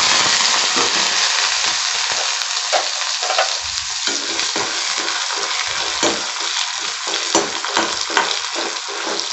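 Chopped onions sizzling steadily as they fry in hot sesame oil in a pan, a little louder at the start. A spoon stirs them, with occasional light clicks and scrapes against the pan.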